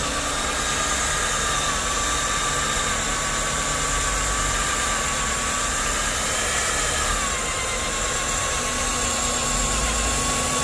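Nitto WOJ-3200 magnetic drill running, its electric motor giving a steady high whine that sags slightly in pitch about seven seconds in.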